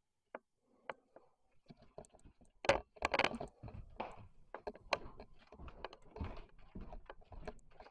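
Footsteps and handling noise: irregular clicks, knocks and low thumps, with a louder knock a little under three seconds in.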